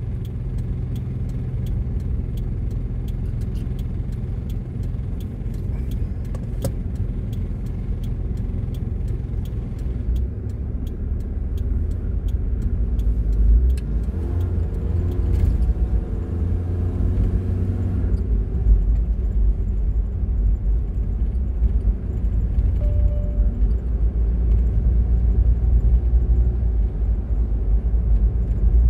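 Car driving along a road: a steady low rumble of engine and tyre noise that grows louder about ten seconds in, with the engine note rising and falling for a few seconds midway.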